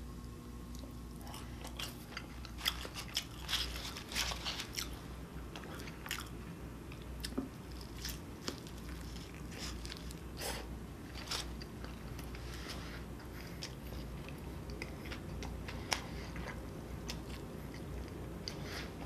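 A person chewing and biting into a burger, with many short, sharp mouth clicks scattered throughout.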